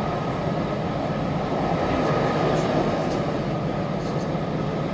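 Steady running noise of a passenger train heard from inside the carriage as it travels at speed: a continuous rumble of the wheels on the rails, with an engine hum under it.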